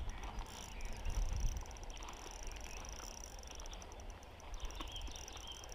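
Spinning reel being wound in to bring in a hooked brown trout: faint rapid clicking over a low rumble of wind on the microphone.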